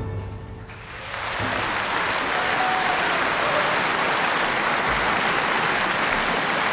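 The orchestra's final chord dies away, and about a second in an audience breaks into steady applause.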